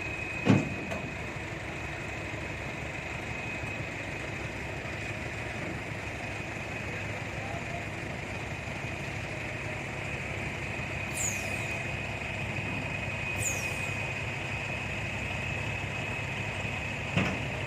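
Truck engine idling steadily, with a sharp knock about half a second in and another near the end, and a few short, high falling chirps around the middle.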